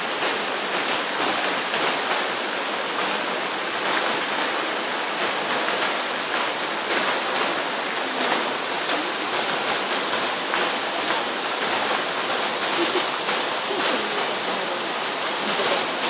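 Bigăr waterfall: water spilling in many thin streams over a moss-covered rock face and splashing into the pool below, a steady rushing and splashing.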